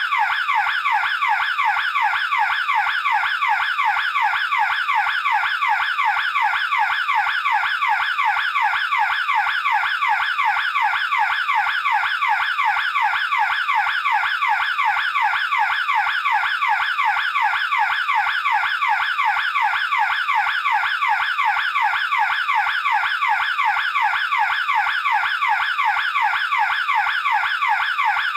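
Electronic burglar alarm siren sounding continuously: a fast warbling sweep in pitch, repeating evenly several times a second, steady and loud.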